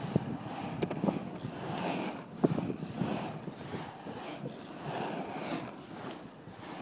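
Skateboard wheels rolling on smooth concrete, the rumble swelling and fading, with a few sharp clacks, the loudest about two and a half seconds in. Wind buffets the phone's microphone.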